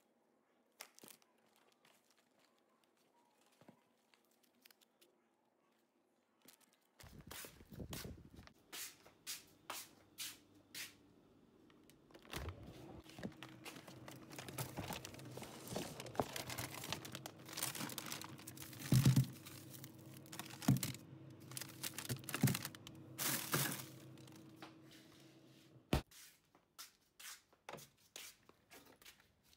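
Plastic bags and food packaging crinkling and rustling as groceries are handled, starting about seven seconds in. A steady low hum runs underneath through the middle and cuts off with a sharp knock near the end.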